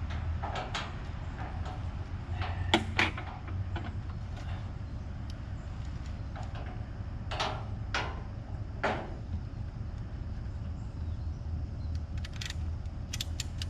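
Scattered knocks and clunks from handling a motorcycle on a folding motorcycle trailer, over a steady low engine hum.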